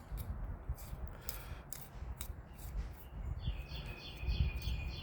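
Irregular light metallic clicks as a fine-threaded fastener is spun down by hand tool. From about three seconds in, a quick run of high repeated chirps comes in.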